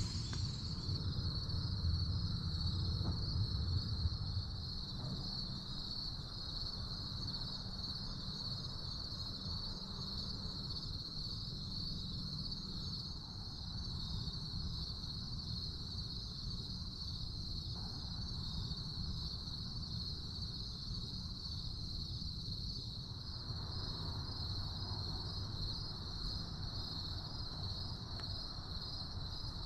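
Steady chorus of crickets, a continuous high trilling. A low rumble runs underneath, heavier in the first few seconds.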